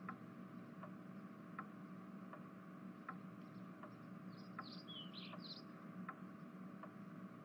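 Faint ambience of evenly spaced ticking, about four ticks every three seconds, over a low steady hum, with a few short bird chirps about four and a half to five and a half seconds in.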